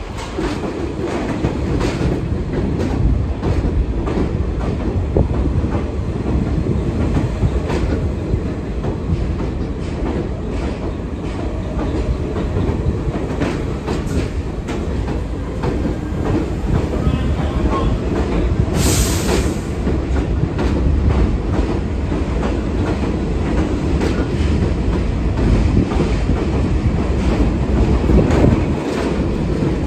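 R46 New York City subway cars rolling slowly along the platform, a steady low rumble with rhythmic wheel clicks over the rail joints. There is a brief high-pitched squeal about nineteen seconds in.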